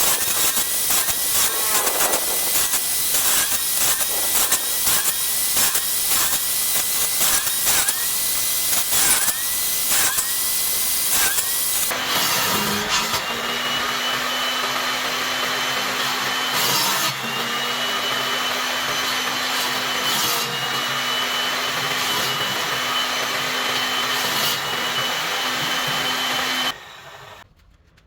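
Electric power tool working wood. For the first half the motor's pitch dips about twice a second as it bites, with rapid clicking. It then settles into a steady high whine that sags briefly a few times, and cuts off abruptly near the end.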